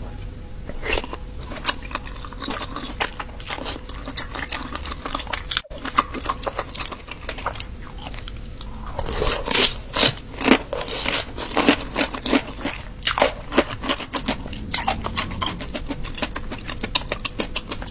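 A person chewing and biting food close to the microphone: a steady run of crunches and wet mouth clicks, with louder bites coming in a cluster about halfway through.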